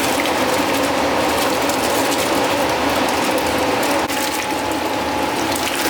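A machine's motor running steadily, dipping slightly in level about four seconds in.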